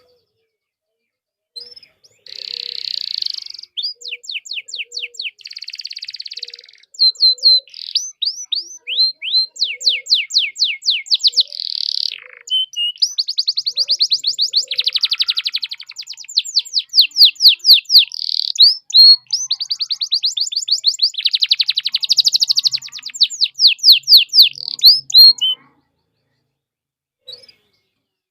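Domestic canary singing a long, loud song of fast trills of sweeping notes broken by buzzy rolls. It starts about a second and a half in and stops a few seconds before the end.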